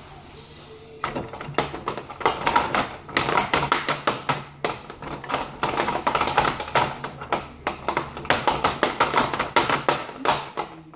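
Rapid, irregular clicking and clattering of hard plastic toy parts being handled. It starts about a second in and keeps going.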